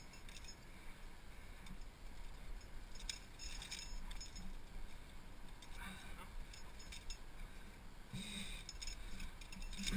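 Faint clinks and scuffs of climbing gear and hands against rock as a climber moves up, in a cluster about three seconds in and again near the end.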